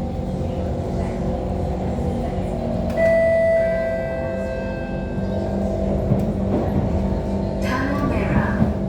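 SMRT Kawasaki C151 metro train pulling into the platform, its running gear humming steadily; about three seconds in, a bell-like chime rings out and fades over a couple of seconds, with a brief voice near the end.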